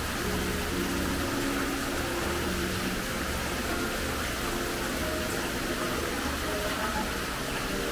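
Small rock waterfall splashing into a koi pond: a steady rush of falling water.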